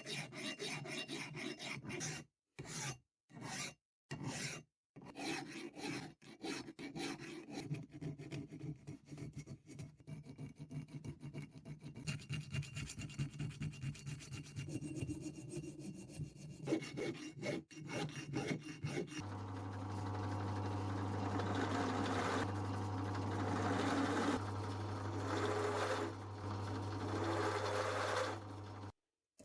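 Rapid hand-abrasive rubbing strokes on the rusty metal of a vintage machinist vise, like filing or hand-sanding, with a few abrupt gaps. About two-thirds of the way in, a small electric tool motor starts with a steady hum, and its abrasive grinding swells and eases as it works the metal.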